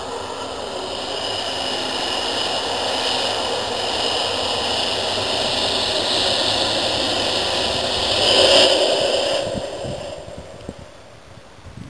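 A swelling rushing roar with no clear pitch, like a jet passing over, building to a peak about eight and a half seconds in and then fading away; most likely a sound effect in the light show's soundtrack played over loudspeakers.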